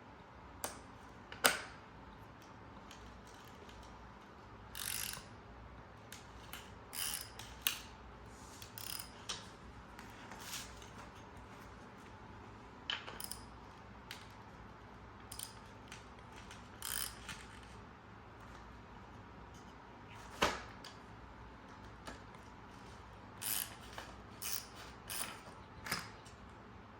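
Irregular clicks, short rattles and scrapes of hand-tool work on metal parts, with a sharp knock about a second and a half in and another about twenty seconds in.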